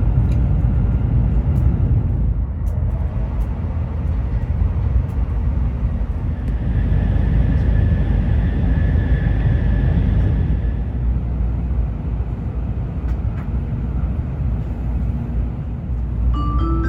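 Steady low rumble of a Shinkansen bullet train running, heard inside the passenger cabin, with a faint high whine rising out of it for a few seconds in the middle. Near the end a short melodic chime starts.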